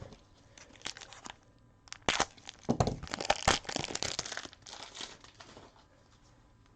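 Plastic crinkling and light clicks in several irregular bursts, from handling a magnetic one-touch card holder and its plastic packaging.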